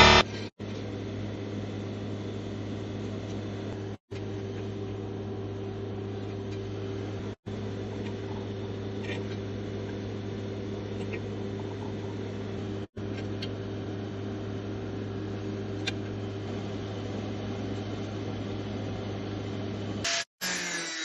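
Electric arc welding: a steady buzzing hiss over a low mains hum, broken off abruptly several times.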